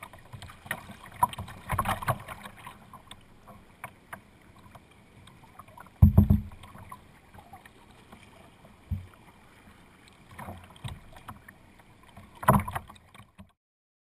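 Kayak paddling: paddle strokes splashing and water slapping against the hull, with several dull thumps, the loudest about six seconds in.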